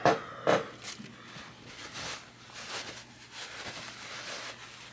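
Paper towel rustling softly as grease is wiped off the fingers, with a few brief handling noises in the first second.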